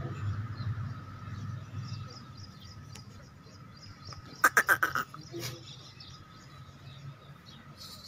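A short animal call about halfway through: a quick run of five or six pulses lasting about half a second.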